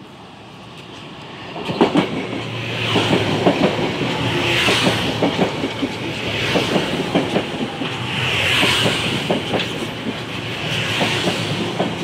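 Metro-North M3 electric multiple-unit train running through the station at speed without stopping. It comes in about two seconds in, then its wheels keep up a fast clickety-clack of knocks over the rail joints, with a rushing hiss that swells and fades every couple of seconds as each car goes by.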